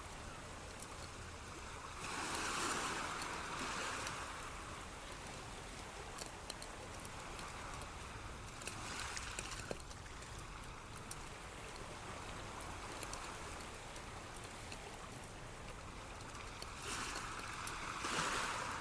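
Flowing water rushing steadily, with small trickling clicks and swells that grow louder about two seconds in, around nine seconds, and near the end.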